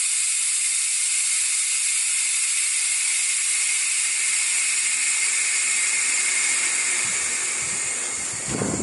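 Compressed air hissing steadily out of a pickup's rear air-suspension bags as they are deflated to lower the back of the truck. The hiss weakens near the end as the bags empty and the rear bottoms out.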